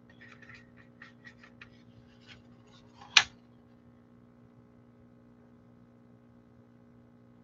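Sheets of paper handled on a tabletop: a few light taps and rustles, then one sharp slap about three seconds in as a sheet is laid down. A steady low electrical hum runs underneath.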